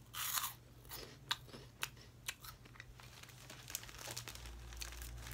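A clear plastic snack bag crinkling as it is handled, loudest in a burst in the first half second, with scattered crisp crunches as crunchy puffed snack balls are chewed.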